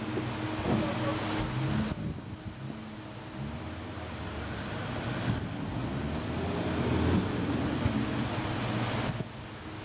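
A 4x4 SUV's engine working under load as it climbs out of a rocky stream up a steep dirt bank, its pitch rising and falling with the throttle, over the steady rush of the stream.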